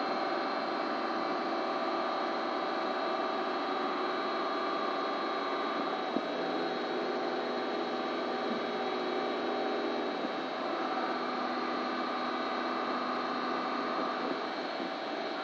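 Steady electrical machine hum with several held tones, from the welding machine running, with a single sharp click about six seconds in.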